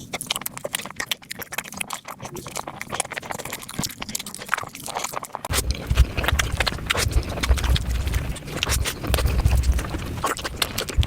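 Close-miked eating sounds: rapid, crowded chewing and mouth-smacking clicks, with a low rumble joining about halfway through.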